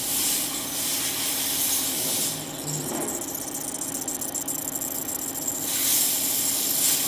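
EDM drilling machine cutting carbide: a steady hiss of dielectric fluid spraying at the electrode, over a steady electrical hum. The hiss eases after about two seconds, with a finer crackle in the middle, and strengthens again near the end.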